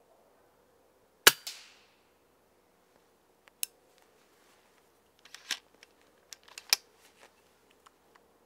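A single sharp shot from a pre-charged pneumatic air rifle about a second in, with a short fading tail, followed by several much quieter clicks from handling the rifle.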